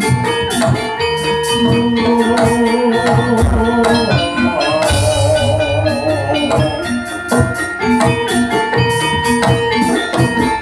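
Jaranan gamelan music played loud: fast metallic and drum percussion under a melody held in long, wavering notes.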